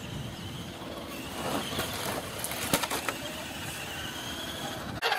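Radio-controlled scale off-road truck tumbling down a dirt slope: a faint electric-motor and gear whine, with scraping clatter and one sharp knock about halfway through as the truck hits the ground.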